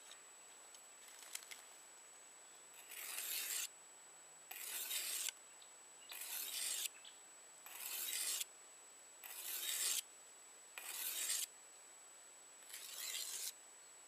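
Steel hunting-knife blade stroked across a wet whetstone: seven scraping strokes, about one every second and a half, each getting louder through the stroke and stopping sharply.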